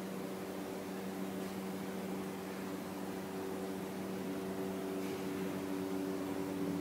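Steady machinery hum: a low, even drone with a couple of higher tones over a hiss. A second, higher tone grows stronger a little past halfway through.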